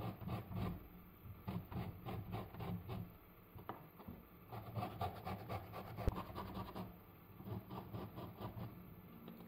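Orange being rubbed up and down a small metal hand grater to take off the zest: a quick run of short rasping strokes, with a single sharp knock about six seconds in.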